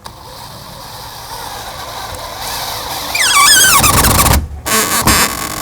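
Power drill driving a wood screw into crate wood with no pilot hole. The drill runs and builds, with a wavering squeal from the screw biting into the wood about three seconds in. It stops suddenly, then gives a short second burst near the end.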